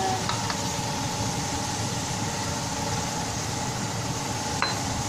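Schezwan chilli-garlic sauce frying in a non-stick pan, a steady sizzle over a low hum, with a light click about a third of a second in and another near the end.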